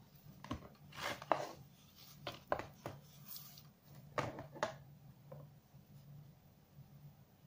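Handling noise from a plastic set-top box being picked up and turned in the hands over its cardboard box: a series of light knocks and rubbing sounds over the first five seconds, then it quietens, with a faint low hum underneath.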